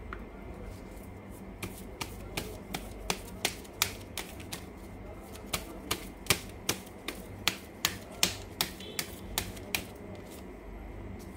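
A deck of oracle cards being shuffled in the hands: a run of sharp, uneven card clicks and slaps, about three a second, that starts about a second and a half in and stops near the end.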